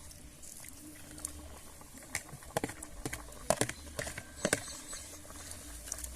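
A pot of curry chicken cooking, with a quick run of about ten sharp knocks and clicks on the pot about two to five seconds in, over a low steady background.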